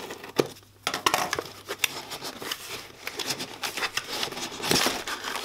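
A small taped cardboard box being handled and opened by hand: a string of sharp clicks, taps and scrapes on the cardboard, then a longer, louder rasp near the end as the taped flaps come open.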